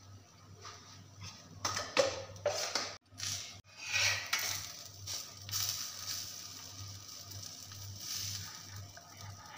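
Steel spatula scraping and knocking on a flat tawa as a sandwich is slid under and flipped, then ghee sizzling steadily under the toasting bread.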